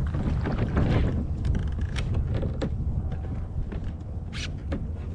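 Wind buffeting the microphone with a steady low rumble while a person steps in shallow water and climbs into a plastic fishing kayak. Rustling and sloshing come in the first second, then scattered knocks and clicks from the hull and gear as he settles into the seat.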